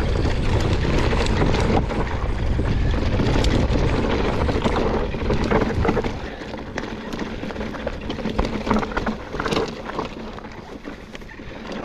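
Mountain bike riding down a rough trail: wind buffeting the camera microphone, with the bike clicking and rattling over the ground. About halfway the wind rumble drops away, leaving the quieter clicks and rattles of the bike.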